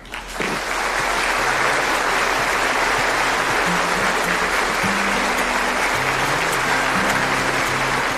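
A large arena crowd applauding, rising in about half a second and holding steady, over background music with a stepping bass line.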